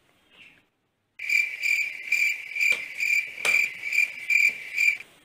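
Cricket chirping: a steady high trill pulsing a little over twice a second, starting about a second in and stopping abruptly near the end, with two sharp clicks in the middle.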